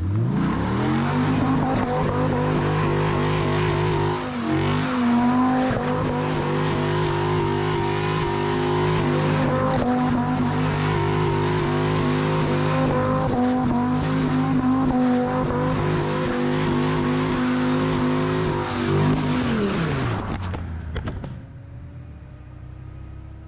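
Dodge Viper's V10 engine held at high revs while the rear tyres spin and squeal in smoky donuts. The revs climb at the start, hold steady with a brief dip about four seconds in, then drop away near the end and fade.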